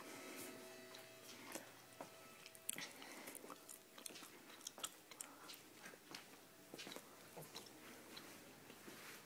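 Faint, irregular clicks and rustles of someone walking through rooms while carrying a handheld camera.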